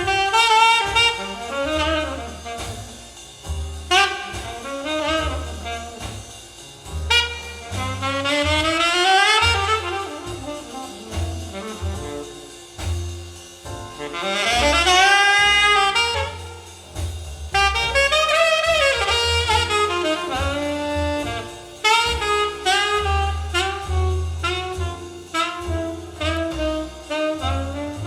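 Jazz instrumental break with a saxophone solo over bass and drums, played back through hi-fi loudspeakers and picked up by room microphones. The saxophone plays bending, sliding phrases over a steady low bass line and drum hits.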